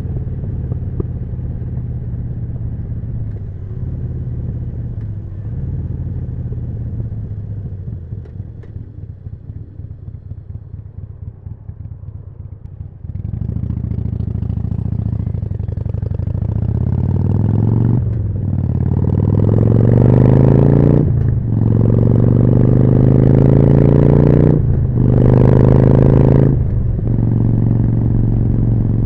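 Harley-Davidson Forty-Eight's 1200 cc V-twin through a Jekill & Hyde exhaust, first running steadily and easing off, then opening up sharply about halfway through and accelerating hard, its pitch climbing through four upshifts with a brief dip at each, before settling into a steady cruise near the end.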